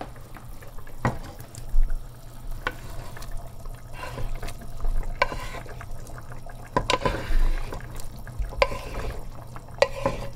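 Sautéed celery being added to a pot of boiling stew and stirred in: liquid sloshing, with scattered sharp knocks of a utensil against the cookware.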